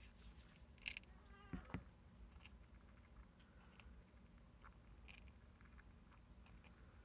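Very quiet, with faint scattered clicks and taps from a Syrian (fancy) hamster picking food pellets out of a plastic bowl and packing them into her cheek pouches. A slightly louder click comes about a second in, and a couple of soft knocks follow around a second and a half in.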